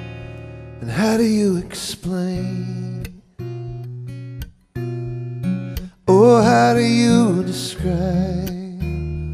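Acoustic guitar accompaniment with a male voice singing two phrases, the first about a second in and the second about six seconds in.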